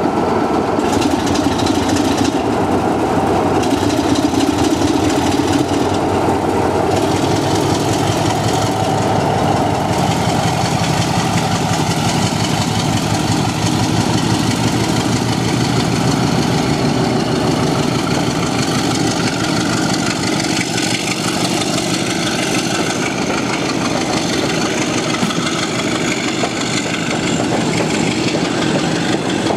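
Diesel locomotive engine running steadily, with a thin high whine that rises slowly through the second half.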